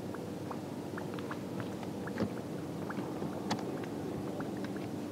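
Steady low hum from the bass boat's equipment, with scattered light clicks and knocks and one sharper click about three and a half seconds in.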